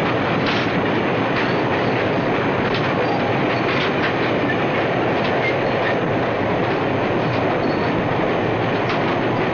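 Freight train running steadily along the track: a dense, even rumble of wheels on rail with scattered clicks, heard on an old film soundtrack with the high end cut off.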